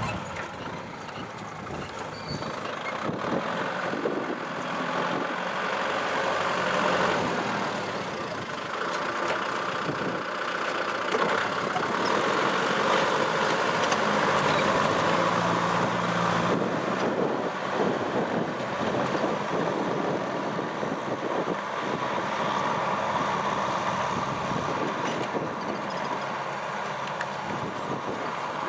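Kubota M6040SU tractor's diesel engine running steadily under working load.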